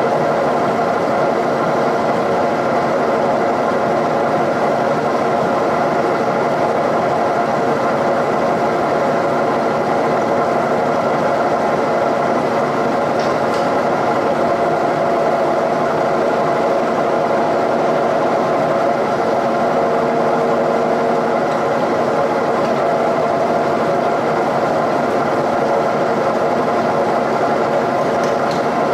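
Milling machine running steadily while it bias-bores the valve port bowls of a cast-iron Cummins 5.9 cylinder head.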